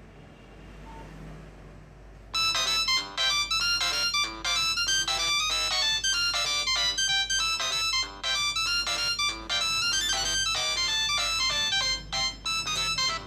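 Polyphonic Nokia ringtone, one of the Nokia 3595's tones, played from a Nokia 3120 classic's loudspeaker. It starts abruptly a little over two seconds in, after faint background hiss, and runs as a quick melody of short, bright electronic notes.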